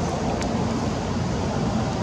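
Steady outdoor background rumble and hiss, with one faint click about half a second in.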